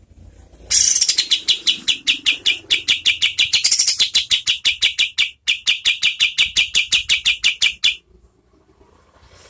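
Kapas tembak, a bulbul, giving its rapid-fire 'shooting' call: a long, fast train of sharp, high notes at about six a second, starting about a second in and stopping about a second before the end, with one brief break midway.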